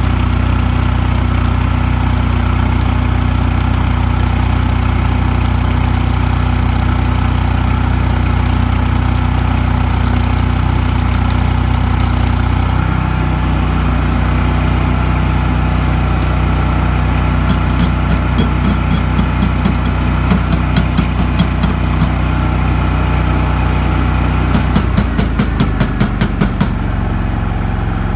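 Champion Elite engine-driven welder's engine running steadily while pipe is stick-welded; its note changes about halfway through. Later come two runs of quick, regular taps.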